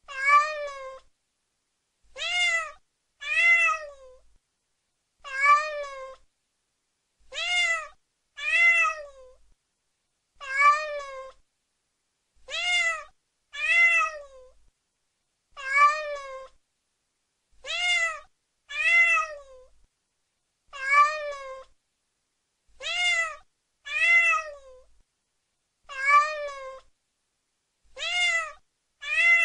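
Mother domestic cat meowing repeatedly, calling for her kittens. The drawn-out meows rise and fall in pitch and alternate between single calls and pairs, one group about every two seconds.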